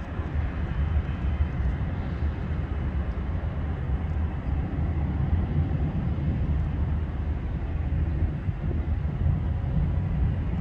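Learjet 60XR's Pratt & Whitney Canada PW305A turbofan engines running with a steady low rumble and a faint thin whine above it.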